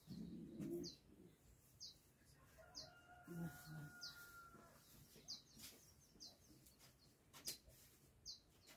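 Faint farmyard bird sounds: a small bird gives short high chirps about once a second, with chickens clucking low near the start and again partway through.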